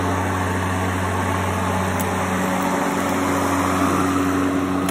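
Erbauer ELM18-Li 36V cordless lawnmower's electric motor and blade running at a steady hum as it is pushed over the lawn. The deck is at its highest cutting height, so the blade is barely cutting the grass.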